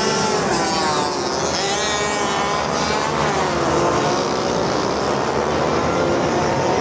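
Several small motorbikes revving hard and accelerating together down a drag strip, their engine notes overlapping and repeatedly rising and falling in pitch as they run up through the gears.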